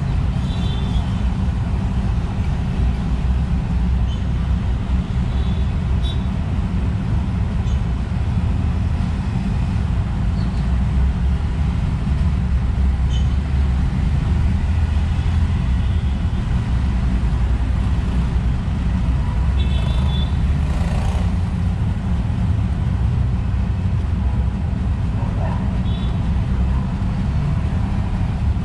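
Steady low rumble of road traffic, with a few short, high chirps from small birds scattered through it.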